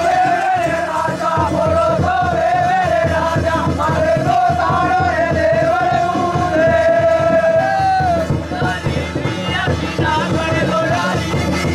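Live Rajasthani Gavri folk music: a high, held melody line over fast, steady drumming, with crowd noise.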